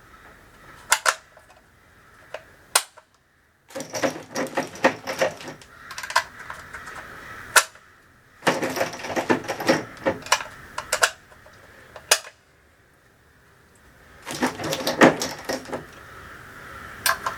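Metal cartridges and gear being handled at the shooting bench: three runs of quick, light metallic clicking and clinking, with a few single sharp knocks in between.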